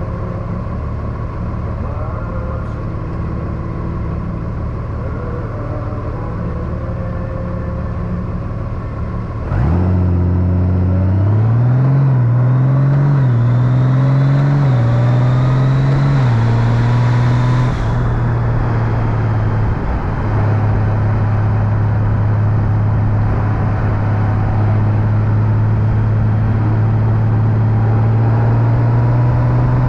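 Honda Gold Wing DCT's flat-six engine idling steadily, then pulling away about nine seconds in. The engine note climbs and drops back in several steps as the dual-clutch gearbox shifts up, then settles into a steady cruise.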